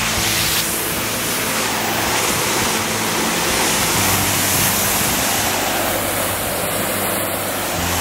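Briggs & Stratton 2,000 PSI electric pressure washer spraying: a steady loud hiss of the high-pressure water jet.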